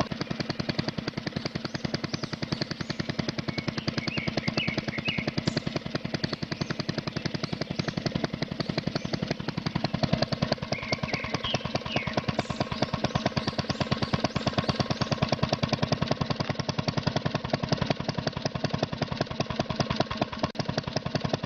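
Homemade miniature PVC model diesel engine water pump running at a steady, rapid, even chugging beat.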